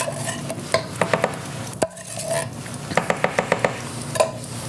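A utensil scraping out a tin can of pumpkin, with short runs of quick metallic clicks and taps against the can as the pumpkin is scraped into a mixing bowl.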